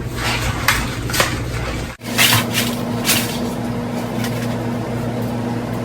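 A cardboard box of dry spaghetti and the pasta being handled: scattered light taps and rustles over a steady hum.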